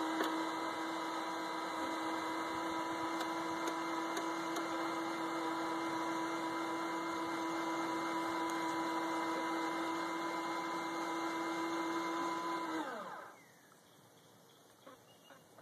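Electric screwdriver motor turning a 3/8-inch threaded rod that slides the chicken coop's door open: a steady whine that falls in pitch and stops about 13 seconds in, as the door reaches the end of its travel and the magnetic switches cut power to the motor.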